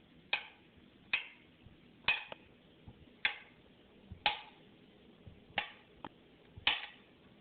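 Knife cutting a banana into slices on a cutting board: seven sharp taps about a second apart as the blade strikes the board.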